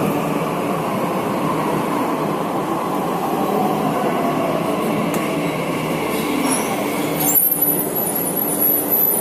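Metro train running alongside an underground platform and slowing, its running noise steady and a motor whine falling in pitch as it decelerates. About seven seconds in, the sound changes abruptly and a thin high squeal sets in as the train comes to a stop.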